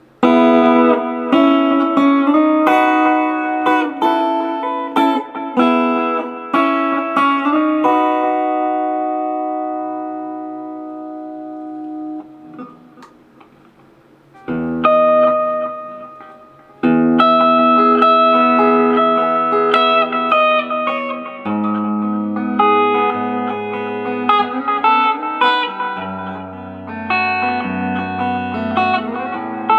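Squier Bullet Telecaster electric guitar played through a Roland Cube amp with reverb and delay. Strummed chords let ring and fade out slowly over several seconds, then the playing starts again with picked chords and melody.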